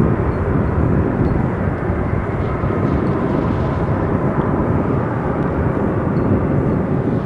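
Jet engines of a landed Airbus A320-232, its IAE V2500 turbofans, running loud and steady with a faint whine as the airliner rolls down the runway.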